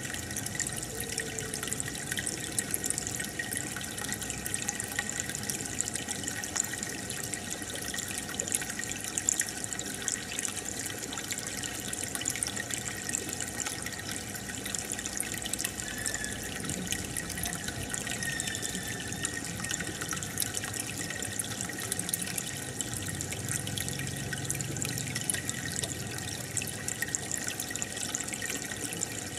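Aquarium water bubbling steadily, a dense crackle of small bubbles and splashes from the air stone and filter.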